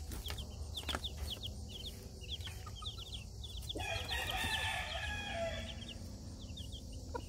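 Baby chicks peeping, many short falling high notes in a steady run. About four seconds in, an adult chicken gives a longer call lasting about a second and a half.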